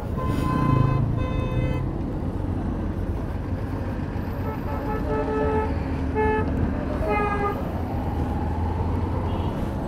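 Vehicle horns in street traffic sounding about five short honks, two in the first couple of seconds and three more around the middle, over the steady low rumble of a moving Hero Hunk motorcycle's single-cylinder engine and wind.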